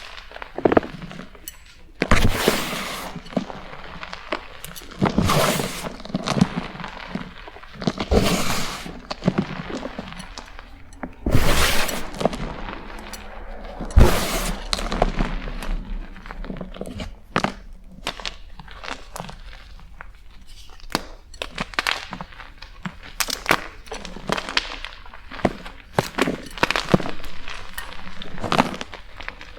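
Blocks of BSN gym chalk being crushed and crumbled: a run of crunches and cracks, with loud breaks about every three seconds in the first half and quicker, smaller crackles after.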